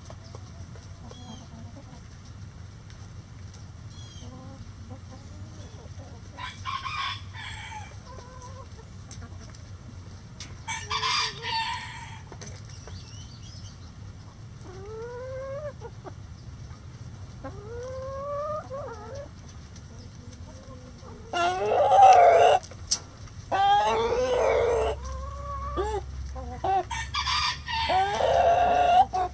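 Backyard chickens clucking, with a rooster crowing several times. The crows are quieter in the first half, and the loudest calls come in the last third.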